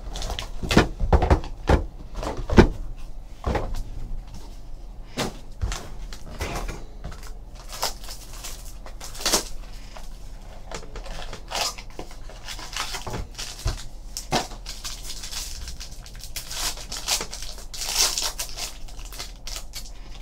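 Cardboard card boxes being handled. Sharp knocks and thuds come in the first few seconds as mini-boxes are pulled out of a 2013 Topps Museum Collection hobby box and set down. Then come rustling and scraping as a mini-box is opened and its cards are slid out.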